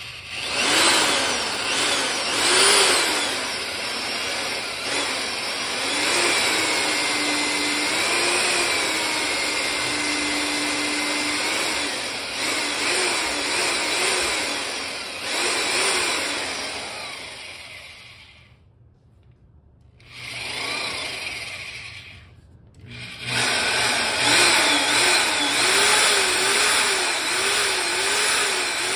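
Corded 9-amp half-inch drill boring into concrete with a Tapcon masonry bit, its motor speed wavering up and down as it bears down under load. It stops briefly about two-thirds of the way through, runs for a moment, stops again, then runs steadily again.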